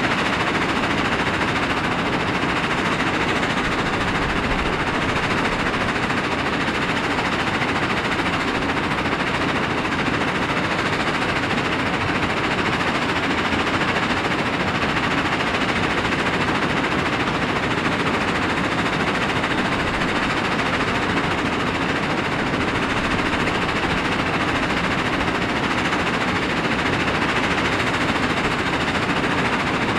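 Terex Cedar Rapids CRC380XHLS cone crusher and screen plant running under load: crushed rock clatters steadily along the conveyor and over the screen deck into the cone crusher as a loud, dense, unbroken rattle of stones.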